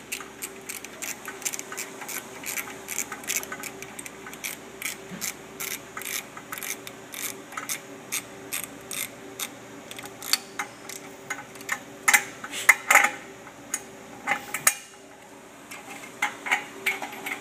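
Ratchet wrench clicking in a rapid run as the bolts of a steel manifold adapter plate are worked, with a few louder metal clanks about twelve seconds in and a short pause near the end.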